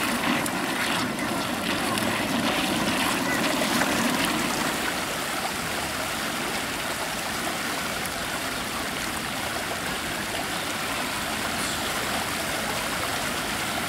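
Water rushing steadily down the shallow granite channel of the Diana Memorial Fountain, a constant stream-like splashing.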